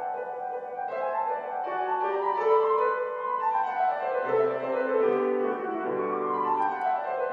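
Background music: a gentle piano-led instrumental with held notes and flowing runs.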